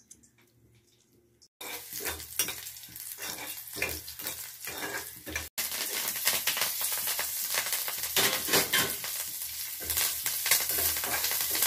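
Tempering of green and red chillies, seeds and curry leaves sizzling in hot oil in a kadai while a spatula stirs it. The sizzle starts suddenly about a second and a half in, breaks off for an instant about halfway through, and comes back louder.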